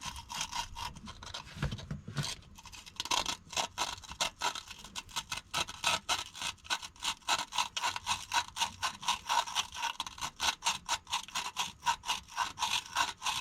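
Sandpaper rubbing on the breaker points inside an old points-type distributor in quick, regular back-and-forth strokes, sanding corrosion off the contacts.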